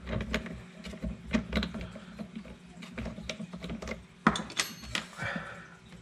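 Hands working the nut and foam tire on an RC tire truer's arbor: scattered small clicks and scrapes over a steady low hum, with a sharp click a little after four seconds followed by a brief metallic ring.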